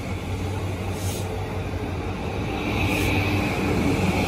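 A JR Yokosuka Line electric multiple-unit train rolls slowly along the platform with a steady low rumble and a high hum. There are two brief hisses, about one second and three seconds in.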